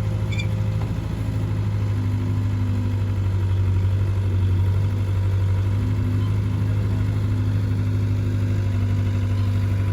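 Heavy diesel engine running steadily with a low, even hum, with no knocks or impacts.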